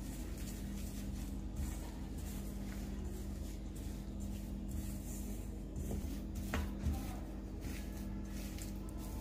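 Silicone spatula stirring and scraping ghee and powdered sugar against a stainless steel bowl: soft, irregular scrapes with two small knocks about two-thirds of the way through, over a steady low hum.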